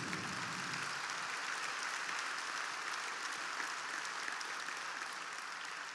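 A large audience applauding, a dense steady clapping that eases off slightly near the end.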